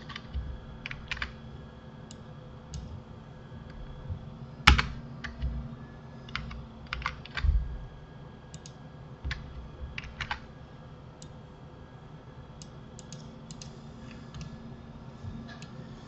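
Irregular keystrokes and clicks on a computer keyboard while shortcuts are entered in a 3D modelling program. The sharpest click comes about five seconds in, and the clicks grow sparse in the last few seconds.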